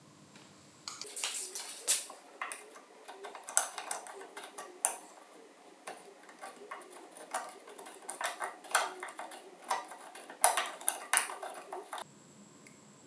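Small metal tool parts being handled: a run of irregular clicks, clinks and taps with a few sharper knocks. It starts about a second in and stops about a second before the end.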